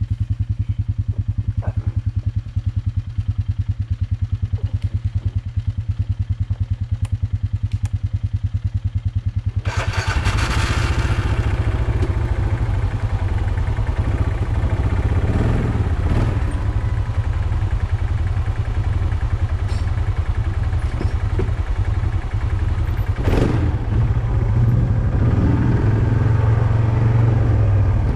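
Arctic Cat ATV's engine idling with a steady low pulse, then about ten seconds in it revs up and runs louder under throttle as the quad moves off along the trail, with a few knocks and clatters from the machine over the ground.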